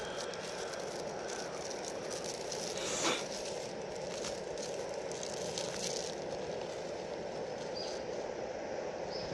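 Iwatani Junior Compact cassette-gas burner running at a steady rush under a small lidded stainless pot of cooking ramen, with faint irregular ticks and rattles from the pot and a brief louder swell about three seconds in.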